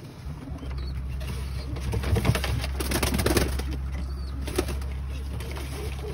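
Domestic pigeons cooing in a loft, with a burst of scuffling and rustling about two to three seconds in as birds are handled.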